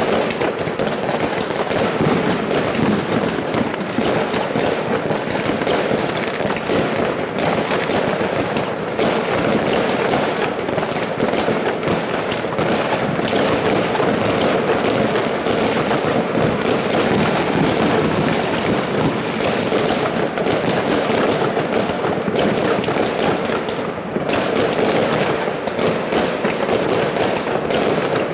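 Many fireworks and firecrackers going off at once over a city, heard as a dense, unbroken crackle of countless bangs with no pause.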